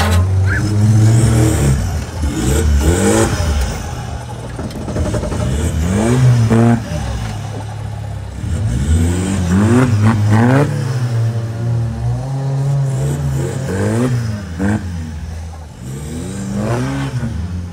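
Suzuki Vitara's swapped-in BMW M47 2.0-litre four-cylinder turbodiesel revved hard in repeated surges as the vehicle claws up a dirt mound. The engine note rises and falls about five times, a second or so each, over a steady running hum.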